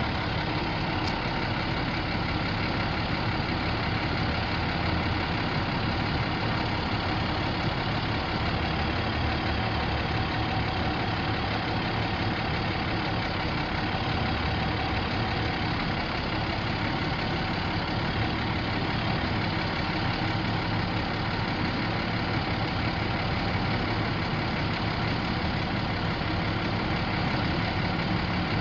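International DT466 7.6-litre inline-six diesel engine of a medium-duty truck idling steadily.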